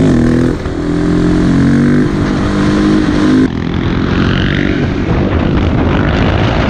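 Dirt bike engine running hard as it is ridden, its pitch rising and falling with throttle and gear changes.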